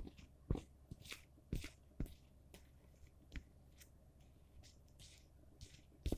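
Close-up chewing of a mouthful of dry water chestnut starch: short crisp crunches and clicks at an uneven pace, more frequent in the first half.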